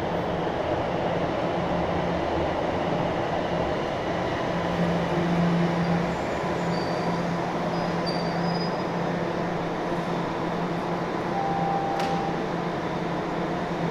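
Toronto Rocket subway train pulling into an underground station and slowing to a stop, a steady rumbling noise that peaks as the train passes, with a short tone near the end.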